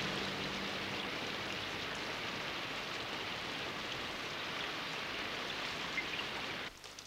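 Steady heavy rain, a dense even hiss, which cuts off sharply near the end.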